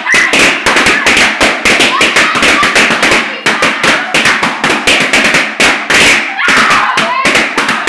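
Latex balloons being popped one after another in rapid succession, several sharp bangs a second without a break.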